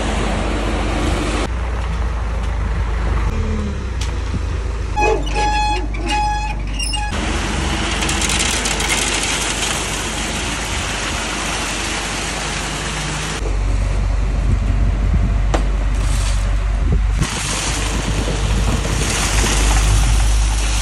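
Concrete mixer truck running, its drum turning while wet concrete churns and pours out down the discharge chute: a steady heavy mechanical noise with a low engine hum, shifting abruptly several times. A brief high tone sounds twice about five to seven seconds in.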